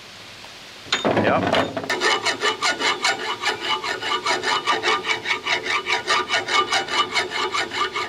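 A hand file rasping back and forth across a steel Toyota crankshaft journal, about three strokes a second, over a steady ring. It is knocking down the raised high spots beside a nick in the journal.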